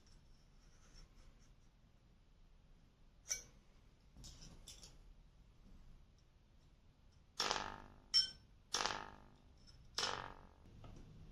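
Bayan being worked on: a few faint clicks, then four short buzzing metallic tones with sharp starts that die away within about half a second each, from the reeds and reed plates being handled and tested.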